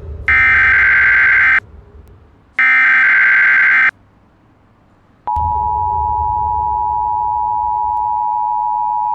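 Emergency Alert System tones: the last two of the three SAME digital header bursts, harsh buzzing data tones about a second long each and a second apart, announcing a new alert. About five seconds in, the steady two-tone EAS attention signal (853 and 960 Hz) starts and holds.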